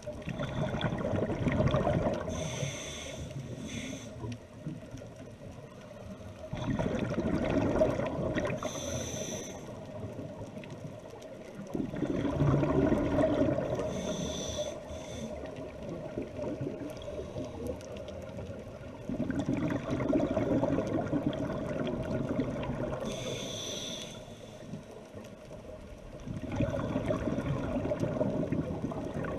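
Scuba diver breathing through a regulator underwater: long bubbling exhalations about every six to seven seconds, each but the last followed by a short, higher hiss of inhalation.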